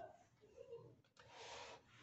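Faint breathing of a person exercising, with one longer hissy breath out a little after a second in.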